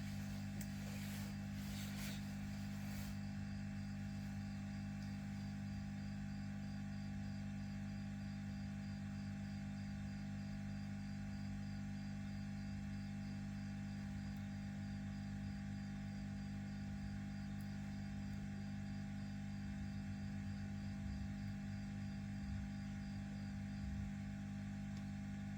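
Steady low electrical hum with a few faint higher tones, a room-tone drone. There are a few faint clicks in the first few seconds.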